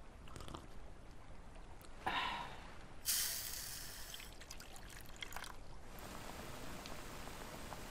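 Granulated white sugar poured into a pan: a dry, hissing rush about three seconds in, lasting just over a second, followed by a few light ticks of grains settling.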